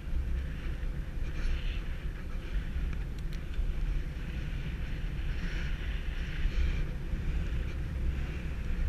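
Steady low wind rumble buffeting the microphone of a bicycle-mounted GoPro while riding, with a soft road hiss that swells and fades a few times.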